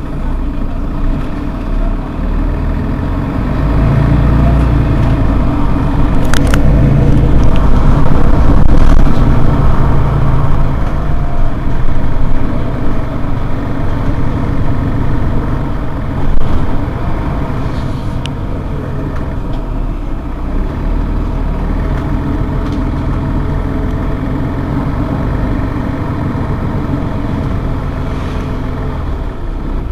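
Mercedes-Benz Citaro G C2 articulated city bus idling at a stop. The engine grows louder from about four seconds in for several seconds, then settles back to a steady idle.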